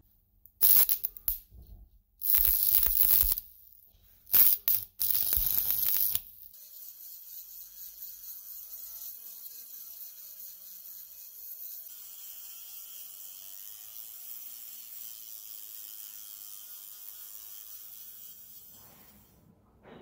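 Arc-welding crackle in three short spells over the first six seconds as tack welds are laid on a small steel ring. Then a Dremel-type rotary tool with a cut-off disc runs with a steady high whine for about thirteen seconds, grinding the welds down, and stops just before the end.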